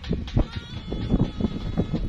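A small short-handled hoe chopping repeatedly into dry, packed soil, a dull thud about three times a second.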